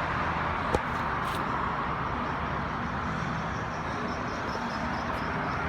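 A steady running engine, with one sharp click just under a second in.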